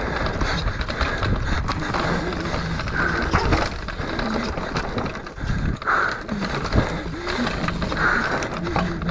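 Mountain bike descending a rough dirt trail at speed: tyres rolling over roots and stones, with frequent knocks and rattles from the bike and wind noise.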